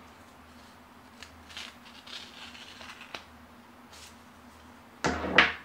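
Hands handling painter's tape on a vinyl decal sheet: faint taps and soft rubbing, then a short, louder crackling rustle of the tape about five seconds in.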